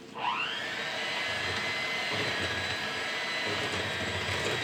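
Electric mixer motor starting up to mix cheesecake batter: a whine that rises in pitch over the first half second, then runs steadily at speed.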